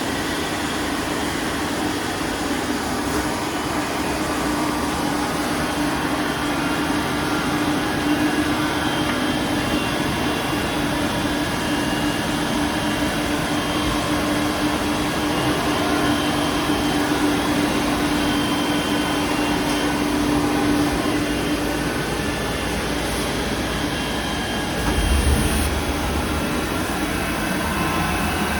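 Steady machine hum with a held tone that stops about three quarters of the way through, and a brief louder low rumble shortly after.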